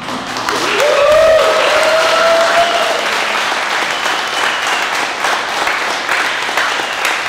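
A room of people applauding with steady clapping, and one long cheer that rises and then holds for about two seconds near the start.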